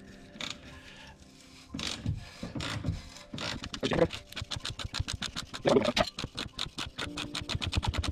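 Ratcheting wrench clicking rapidly as a heated, seized subframe bolt is turned out. The clicking follows a few separate knocks and starts about three and a half seconds in.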